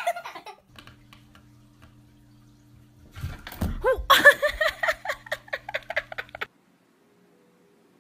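A person laughing in quick bursts for about three seconds, starting a few seconds in and cutting off suddenly; before it there is only a faint steady hum.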